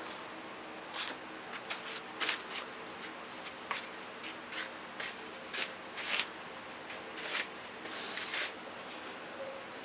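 Irregular short scrapes, rustles and clicks of hands handling things at the lathe, over a faint steady hum.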